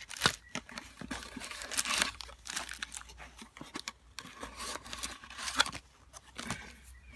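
Packaging crinkling and rustling as the parts of a power adapter are taken out of their box, with irregular small clicks and knocks.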